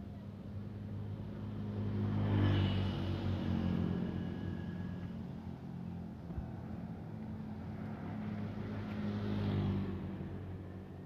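Road traffic: motor vehicles pass by twice, once about two seconds in and again near the end, each swelling and fading over a steady low engine hum.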